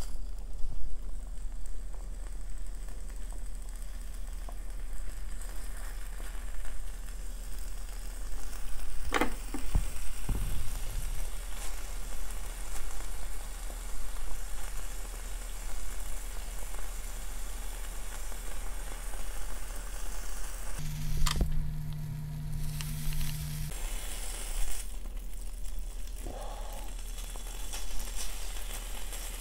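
Beef steak sizzling steadily on a ridged grill pan over a small brazier fire, with a couple of sharp clicks along the way and a brief low hum about two-thirds through.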